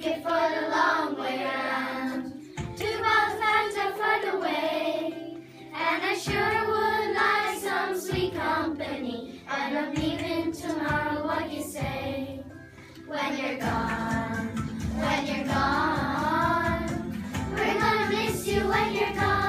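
A group of children singing a song together over a steady musical accompaniment, with short, sharp taps of hands on a tabletop keeping time. The taps grow more frequent in the second half.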